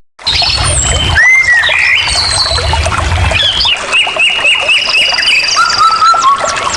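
Several songbirds singing at once: whistled notes, rising and falling calls, and a quick run of repeated chirps in the middle, with a low rumble underneath at times. The sound drops out for a moment at the very start.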